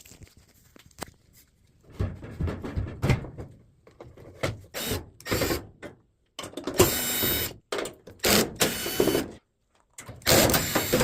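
LG clothes dryer squeaking: a series of squealing, rubbing bursts, each up to about a second and a half long, with short pauses between them.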